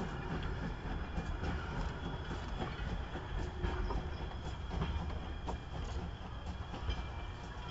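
A steam-hauled goods train pulls away, its wagons and brake van rumbling along the track with scattered sharp clicks over the rail joints.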